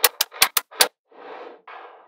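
Small magnetic balls snapping together in about five sharp clicks in quick succession, followed by two short stretches of rattling and sliding as a slab of balls is moved across the table.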